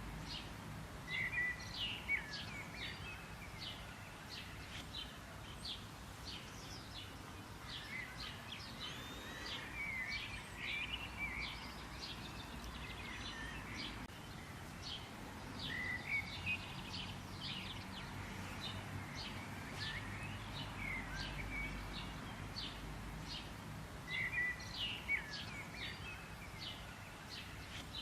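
Songbirds chirping and singing: a steady stream of short, high chirps, broken every several seconds by brief warbling phrases, over a low steady background rumble.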